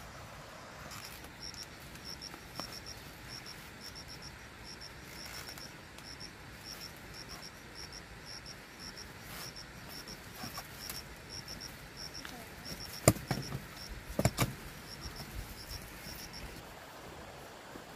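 Short high chirps repeating in twos and threes, like a cricket, over a low background. A few sharp knocks sound about three-quarters of the way through: one single, then a quick cluster. These knocks are the loudest sounds.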